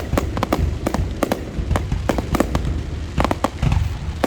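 Fireworks display: many shells bursting in sharp cracks at irregular spacing, several a second, over a steady low rumble.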